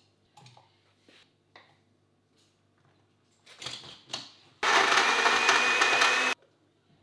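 Personal bottle blender running for under two seconds with a high whine, blending a protein shake of milk, banana and dates, then stopping sharply. Before it, a few clicks and knocks as the bottle is screwed up and set onto the motor base.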